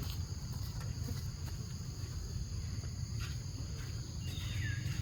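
Steady high-pitched drone of insects with a low rumble underneath, a few faint clicks, and one short high call that slides down in pitch near the end.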